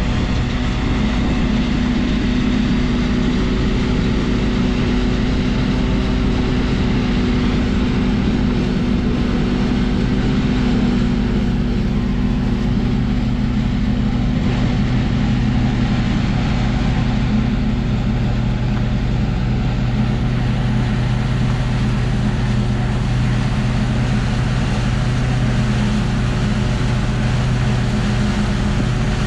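Silage corn chopper at work: a loud, steady machine drone with a low hum.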